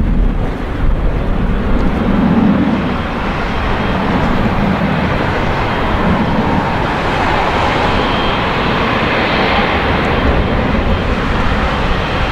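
Boeing 777-300ER's twin GE90-115B turbofan engines running at low taxi thrust as the airliner rolls slowly along the taxiway: a steady jet rush with a faint high whine.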